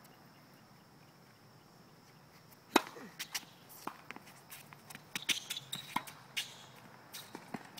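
Tennis point on a hard court: a sharp, loud racket-on-ball hit a little under three seconds in, then a run of ball hits and bounces with shoe scuffs and squeaks on the court surface.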